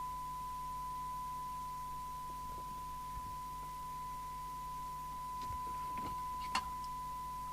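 Steady single-pitch test tone from the Amstrad CB901 FM CB radio's loudspeaker, the receiver demodulating the S9 test signal while its detector is set, over a low mains hum. A few faint knocks near the end.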